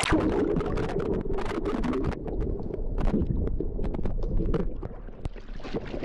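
Muffled underwater sound as a swimmer dives with the camera under the sea surface: a low rumble with bubbling and crackling clicks. Near the end it opens up into splashing as he breaks the surface.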